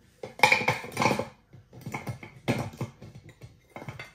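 Frozen banana slices clattering into a hand blender's beaker as they are tipped in from a glass bowl, in three clusters of knocks, the loudest near the start.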